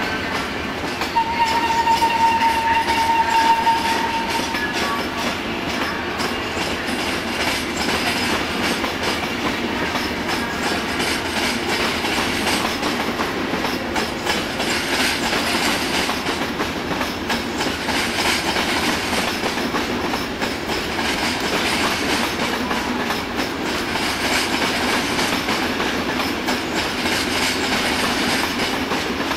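Locomotive-hauled train of passenger coaches rolling over the station tracks and points, its wheels clattering steadily over rail joints. A single steady high tone sounds for about three seconds near the start.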